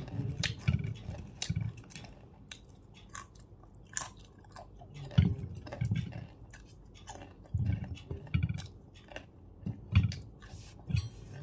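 A person biting and chewing something crisp close to the microphone. Sharp crunches come in clusters every second or two, with short pauses of chewing between them.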